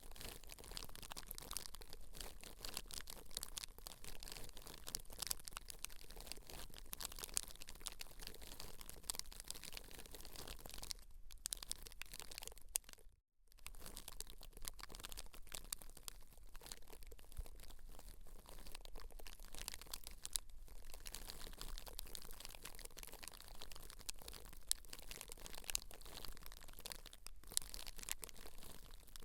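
Close-miked ASMR scalp-care sounds: hair and scalp being worked, giving a dense stream of soft crackling and scratching. It drops out briefly about thirteen seconds in.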